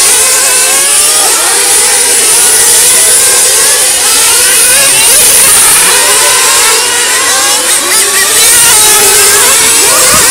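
Several 1/8-scale nitro RC cars racing, their small nitro engines running at high revs. Many overlapping whines rise and fall continuously as the cars accelerate and lift off for corners.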